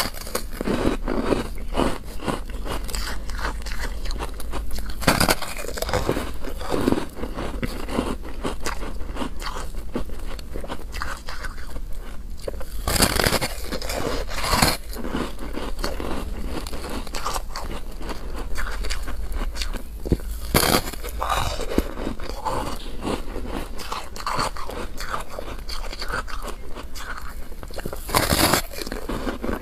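Crunchy biting and chewing of purple frozen foam ice, with about six loud crunching bites a few seconds apart and steady crackly chewing between them.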